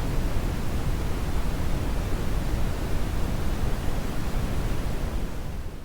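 Brown noise: a steady, deep rushing hiss with most of its weight in the bass, like a distant roar. It begins to fade out near the end.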